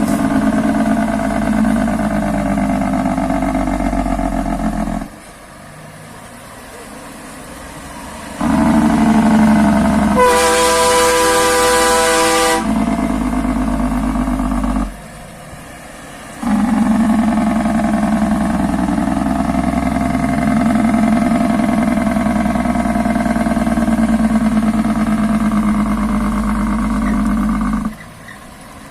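Semi-truck diesel engines running loudly in a series of short clips that cut from one truck to the next. A truck air horn blasts for about two seconds about ten seconds in.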